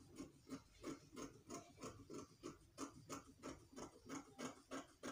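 Fabric scissors snipping through cloth in a steady rhythm, about three faint snips a second.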